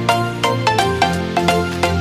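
Background music with a quick, regular run of plucked or struck notes over a steady bass line.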